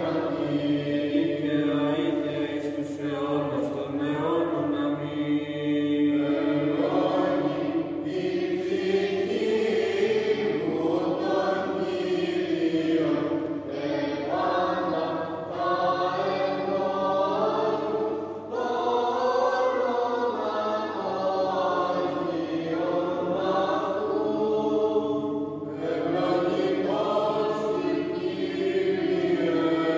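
Greek Orthodox Byzantine chant: voices singing a slow, continuous melodic line with long held notes.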